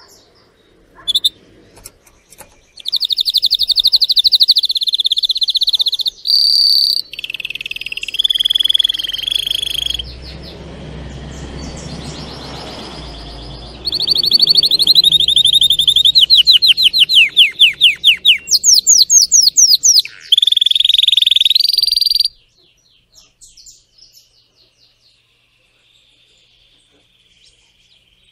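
Male domestic canary singing: a string of rapid, high trills and rolls, each phrase repeated for a second or two before switching to the next. A low rumble of noise runs under the song midway. The song stops several seconds before the end, leaving only faint chirps.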